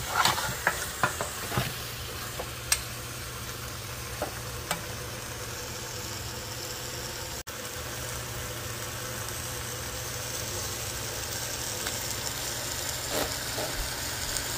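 Beef and potato curry sizzling in a Dutch oven pot as the meat browns in its masala, before any water goes in. A spoon stirs and scrapes the pot in a few quick clicks during the first couple of seconds, then the sizzle runs on steadily over a low hum.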